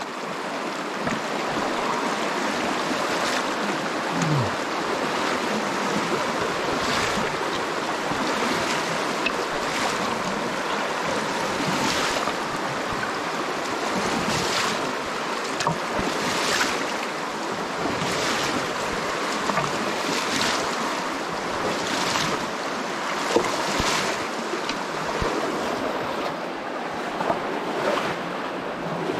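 Shallow river water rushing over rocks, with splashing wading steps through knee-deep water about every one to two seconds.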